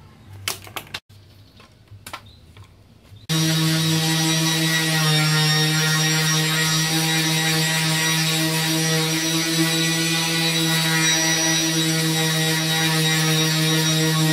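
A few clicks, then about three seconds in an electric power sander starts and runs steadily with a low hum, sanding body filler on a plastic car side skirt.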